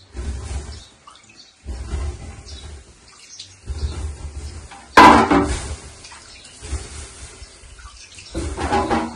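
A hand rubbing and pressing over a large flour-dusted metal baking tray in repeated short strokes, with a sharp knock about five seconds in.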